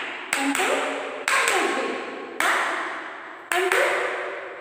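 Hand claps, about six of them at uneven spacing, some in quick pairs, each ringing on with a long echo. They are the counting claps of a children's number game.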